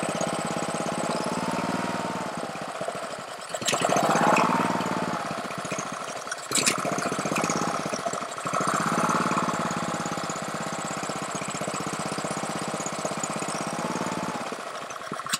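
Honda small engine on a Ryobi pressure washer running with the choke off. Its speed and loudness swell up and fall back twice, a couple of sharp clicks can be heard, and the engine cuts out near the end. It is running poorly off choke, which the owner puts down to a carburetor problem.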